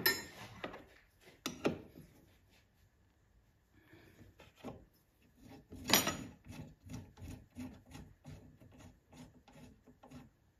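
Steel spanner working the 13 mm wiper-arm nut loose on a 1972 Karmann Ghia: metal clicks and scraping. There is a sharp knock about six seconds in, then a run of quick clicks, about three a second, as the nut is turned.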